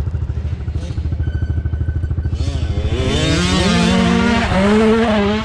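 Mini dirt bike engine revving, its pitch rising and falling, growing loud from about halfway in as the bike comes close, over a steady low pulsing rumble.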